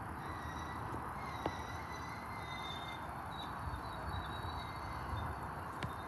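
Freight train of covered hopper cars rolling slowly past, a steady rumble of steel wheels on rail with faint thin high squeals and two sharp clicks.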